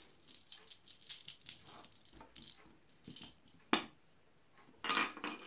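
Faint, scattered light taps and rattles of a feather wand toy and a cat's paws batting at it on a wooden floor, with one sharp tap about three and a half seconds in and a brief rustle near the end.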